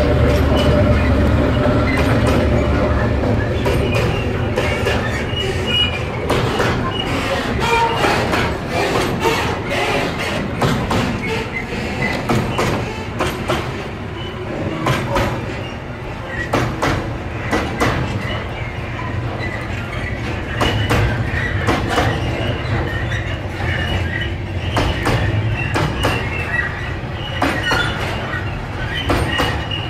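EMD G-16 locomotive's two-stroke diesel engine rumbling as it passes at the start, then container flat wagons rolling slowly by, their wheels clicking irregularly over the rail joints with light wheel squeal.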